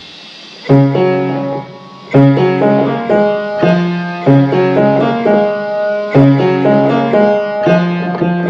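Old Beale upright piano played by hand: a slow run of chords, struck about once a second and left ringing. The first chord comes about a second in.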